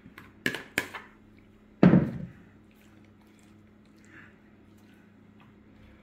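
Two light taps, then a single dull thump about two seconds in as a plastic mixing bowl is set down on a table; after that, faint soft sounds of hands stirring chopped vegetables in a glass bowl.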